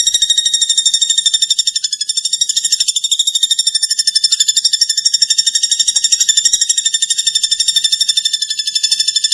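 Platuk bawang bird singing a continuous rapid, high-pitched trill of evenly repeated notes, about a dozen a second, with no break.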